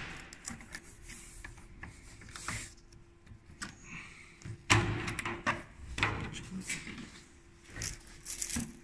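Plastic windscreen cowl panel of a Renault Megane 2 being worked loose by hand: scrapes, rubbing and clicks of the plastic against the body, coming in several bouts, the loudest about halfway through.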